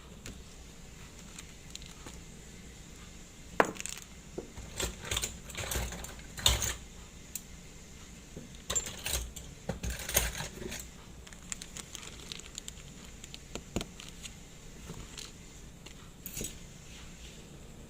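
Small metal clicks and taps of a watchmaker's tools and watch parts being handled on a bench, in irregular clusters through the middle, with a few single ticks later.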